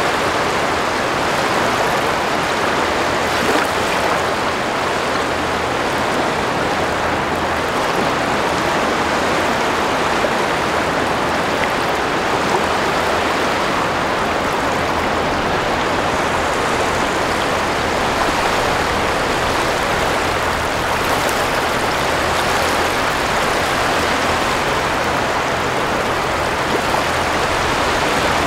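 Sea waves breaking on a sandy shore: a steady, continuous rush of surf with no separate swells standing out.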